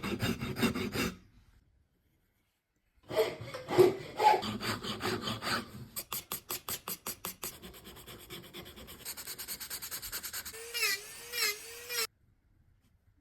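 Hand tools scraping and rubbing on wood in rhythmic back-and-forth strokes. The strokes stop suddenly, resume about three seconds in, quicken about six seconds in, and turn into rapid rubbing with a brief wavering squeak before cutting off near the end.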